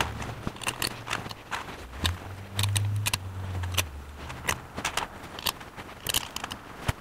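Light clicks and taps of small metal parts and screws being handled and set into a Rochester 4-jet carburetor's air horn, with a low rubbing rumble about two to four seconds in.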